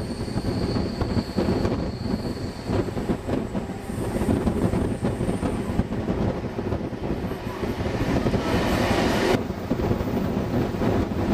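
Steam-hauled passenger train rolling on the rails, heard from an open carriage window, with a thin high wheel squeal on the curve for the first few seconds. A rushing noise builds and cuts off suddenly about nine seconds in.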